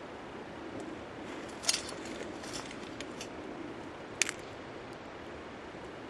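Steady rushing of a clear stream, with a few sharp snaps over it, the two loudest a little under two seconds in and about four seconds in.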